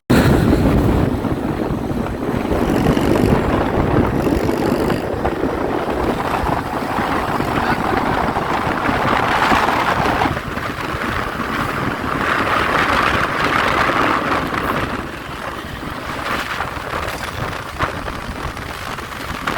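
Wind buffeting the microphone over the noise of moving road traffic: a steady rushing with no clear tones.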